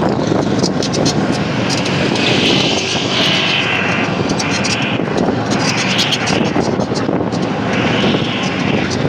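Steady roadside traffic, with vehicle engines and tyres passing and swelling in turn, and wind rumbling and crackling on the microphone.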